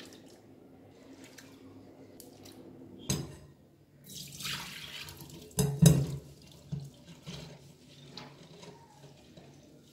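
Water poured from a bowl of soaked moong dal through a steel mesh strainer, splashing into a stainless steel sink for a second or two. A sharp knock of a dish or strainer against the sink comes about halfway through, followed by lighter knocks and clatter as the wet dal is handled.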